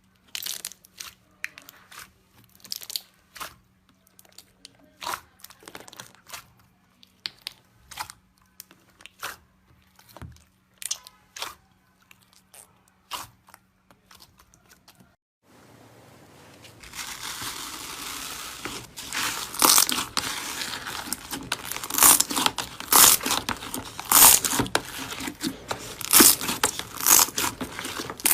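Crunchy 'çat çat' crackle slime being worked, giving sharp crackles and pops. They are sparse at first, then about halfway through turn denser and louder.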